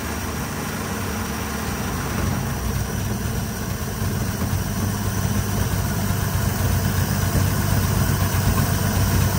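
Carbureted car engine idling steadily, set a little high, while its idle is being turned down by screwdriver adjustment. The low drone slowly grows louder over the stretch.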